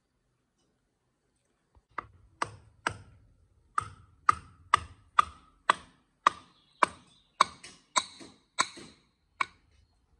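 A series of about fifteen sharp taps, roughly two a second, beginning about two seconds in, each ringing briefly.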